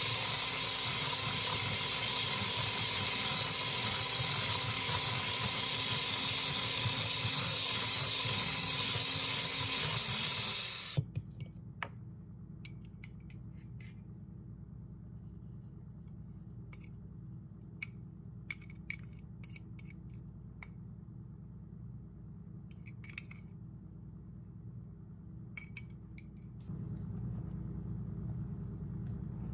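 Electric hand mixer whipping egg whites in a glass bowl, running steadily and then switched off about a third of the way in. After that come scattered light clicks and taps of utensils against the glass bowl, and a low hum comes in near the end.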